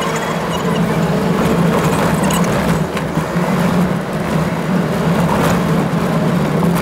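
Toyota Land Cruiser driving steadily on a loose gravel track, heard from inside the cabin: a steady engine drone over road noise from the tyres, with a few faint clicks and rattles.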